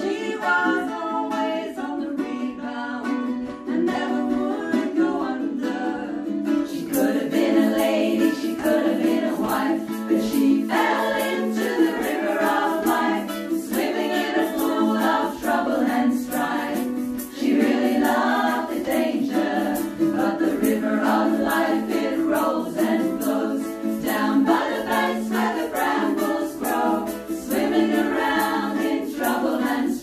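A women's vocal group singing together in harmony, accompanied by a strummed ukulele.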